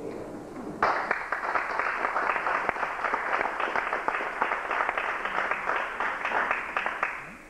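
Audience applauding in a hall: many hands clapping, beginning suddenly about a second in and dying away near the end.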